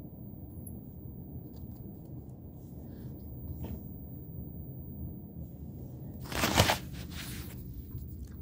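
Steady low room hum with a few faint small clicks, and a short, loud rustling scrape about six and a half seconds in, followed by a softer one.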